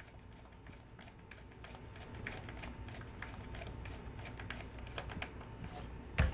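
A small screwdriver turning a screw into a toy shotgun's grip: faint, irregular clicks and scrapes of the screw and handled toy, with one louder knock near the end.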